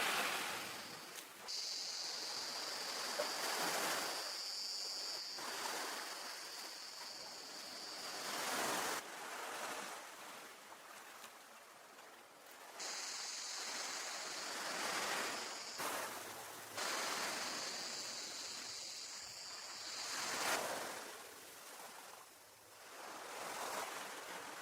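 Ocean waves breaking and washing up the beach, surging every two to four seconds. A steady high-pitched hiss sits over them: it starts suddenly about a second and a half in, stops around nine seconds, and returns from about thirteen to twenty seconds.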